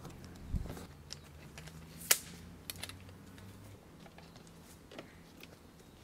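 Scattered light clicks and taps of painting gear and a tripod easel being handled and set up. There is a sharper click about two seconds in and a low thump about half a second in.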